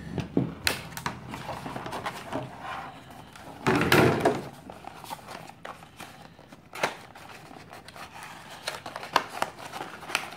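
Clear plastic blister packaging and a cardboard box being handled, with scattered clicks and crinkles and a louder rustle about four seconds in.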